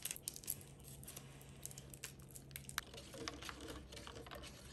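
Faint clicks and crinkles of small plastic cream portion packs being handled and squeezed into a cup of cola, then soft rustling as a straw stirs the drink, over a low steady hum.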